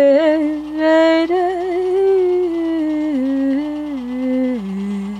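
A woman's solo voice chanting without accompaniment. She holds long sustained notes on a drawn-out word, and the pitch rises about a second in, then steps down slowly toward the end.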